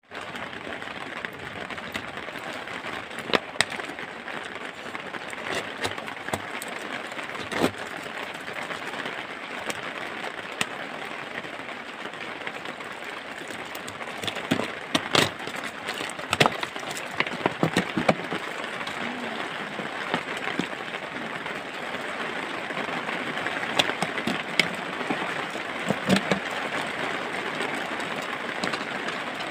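A large plastic water-bottle terrarium handled by hand, giving scattered taps and clicks, with a cluster of them about halfway through, over a steady background hiss.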